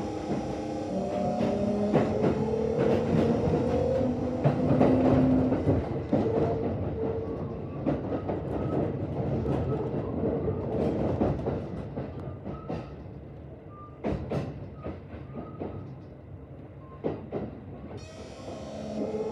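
Traction inverter and motors of a Kintetsu 1026 series electric train under power, a whine of several tones climbing in pitch over the first few seconds, with wheels clicking over rail joints. The sound falls away partway through and the inverter tones return near the end. The uploader notes that this set's inverter mixes an unusual hoarse, growling noise into its tone under power and braking, and links it to deterioration.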